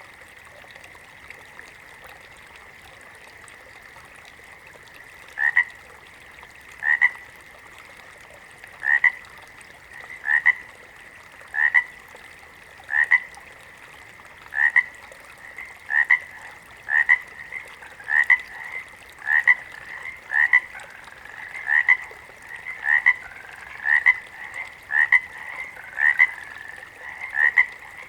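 Frogs croaking: short calls repeated about every second and a half, starting a few seconds in, then coming faster and overlapping. A faint steady high chorus sounds underneath.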